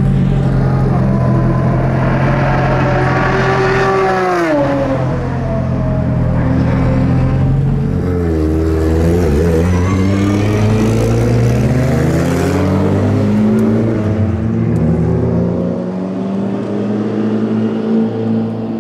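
Race car engine at high revs, its pitch climbing then dropping sharply about four seconds in. Around the middle the pitch dips and swings back up, and the engine then pulls with steadily rising pitch through most of the rest.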